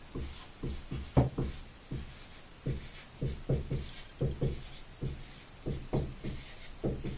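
Marker pen writing on a whiteboard: a run of short, irregular taps and strokes, about two or three a second, as symbols are written.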